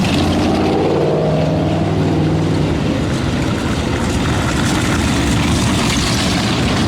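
Ford V8 engines of WW2 Universal Carriers running as the tracked convoy moves past, one engine note falling in pitch over the first few seconds as a carrier goes by.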